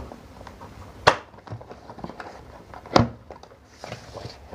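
Tight cardboard box being forced open by hand: handling noise with two sharp knocks or snaps about two seconds apart, and a few fainter clicks between.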